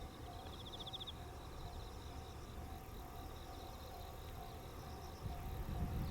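Insects calling in the open, a pulsed high rasping trill strongest in the first second, over a faint tone that pulses on and off steadily throughout. A low rumble swells near the end.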